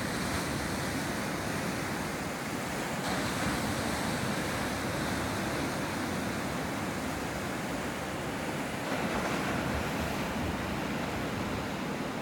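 Rough, high sea with waves breaking into foam: a steady rush of surf that swells a little louder a few times.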